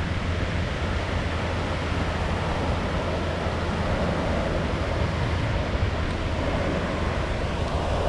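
Ocean surf breaking and washing up the beach in a steady rush, with a low wind rumble on the microphone.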